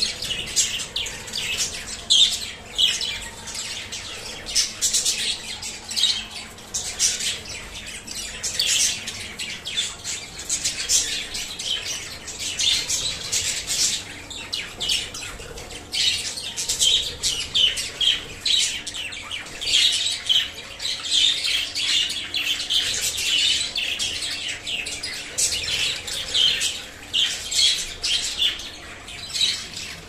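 A flock of budgerigars chattering, a constant stream of short, high chirps overlapping from many birds.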